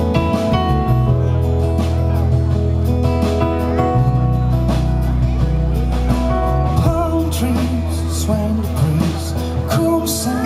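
Live band playing an instrumental passage of a song: strummed acoustic guitar, electric bass, keyboard and drums. The bass moves to a new note every few seconds.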